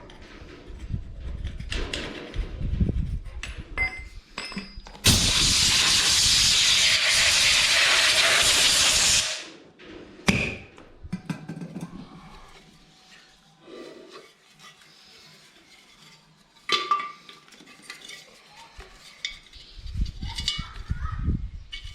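A loud, steady hiss of a pressurised spray, starting sharply about five seconds in and cutting off about four seconds later. Around it come scattered light metallic clinks and knocks of small parts being handled.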